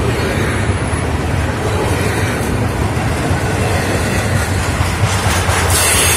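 Double-stack container well cars of a Florida East Coast Railway freight train rolling past: a steady rumble of steel wheels on rail with a low drone underneath. A brighter hiss comes in near the end.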